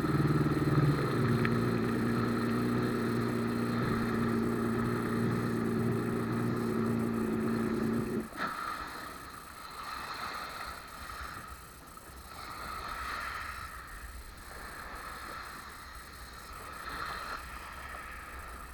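Jet ski engine running at low speed, its note dropping about a second in as it slows, then shut off suddenly about eight seconds in. After that, only soft, uneven water and wind sounds at the shoreline.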